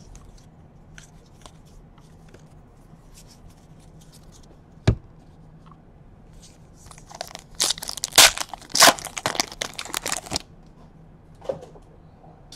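A 2017 Donruss baseball card pack wrapper being torn open and crinkled: light card-handling clicks, a sharp snap about five seconds in, then a loud burst of tearing and crinkling for about three seconds from the seventh second, with one brief rustle near the end.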